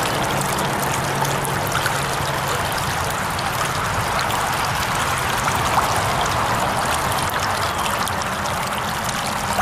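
Small rocky stream flowing steadily over stones: an even, unbroken wash of running water.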